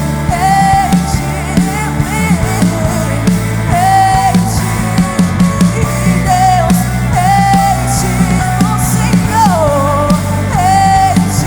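Live worship band music with a woman singing held notes that glide and waver, over steady bass and regular drum hits.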